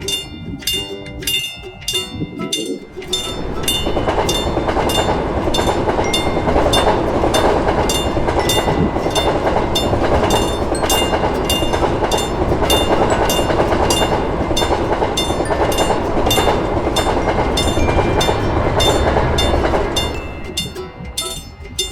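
Level-crossing warning bell ringing in a steady rhythm of about three strikes a second, while a train passes through the crossing: its rumble comes in about three seconds in, holds, and fades away near the end.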